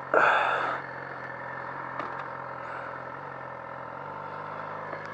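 Yamaha R6 sport bike's inline-four engine running at low revs as the bike rolls slowly, a steady low hum whose note changes slightly about four seconds in. A short, loud hiss of noise comes just after the start.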